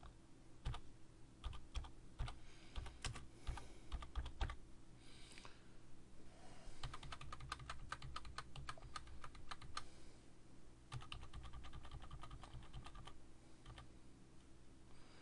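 Typing on a computer keyboard: scattered keystrokes at first, then quick runs of keystrokes from about seven seconds in, over a faint steady low hum.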